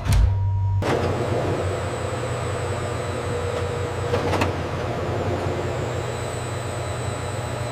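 Steady running noise of machinery with a low hum and a few steady tones, starting after a short sharp click, with a faint tick about four seconds in.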